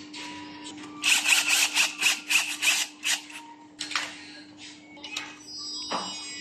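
A quick run of sharp clicks or taps, about five a second for two seconds, then a few scattered knocks, over a faint steady hum.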